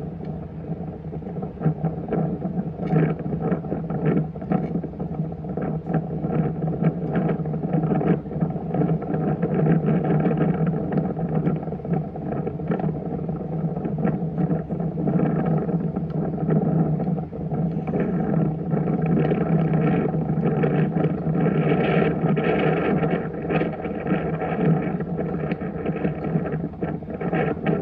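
A motor running steadily with a deep, even hum.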